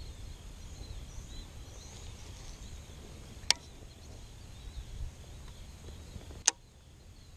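Outdoor ambience: a steady low rumble with faint high chirping, and two sharp clicks about three seconds apart. The low rumble fades after the second click.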